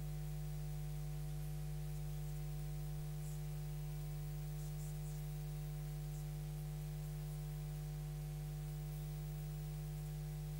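Steady electrical mains hum, a low buzz with a strong fixed tone and evenly spaced overtones that never change, with no race sounds audible over it.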